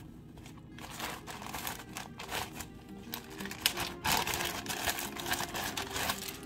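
Irregular clicks and rustles of something being handled, over faint background music.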